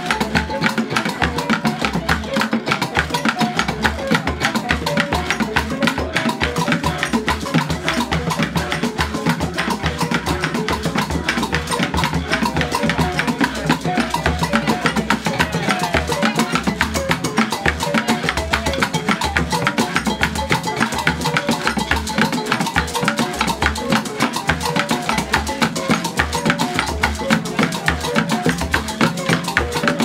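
Ghanaian percussion ensemble playing a steady, driving rhythm: a calabash water drum (a gourd floating upside down in a bucket of water, struck with a stick) with gourd rattles, a cajón and bamboo instruments. Deep, evenly repeating thuds sit under dense clicking and rattling strokes.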